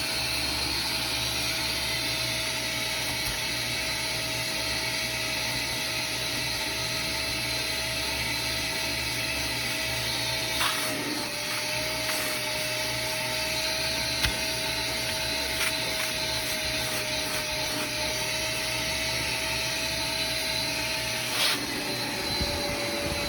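Wet-and-dry vacuum cleaner running steadily with a constant motor whine as it sucks cleaning solution out of a fabric car seat. A few sharp clicks break through it.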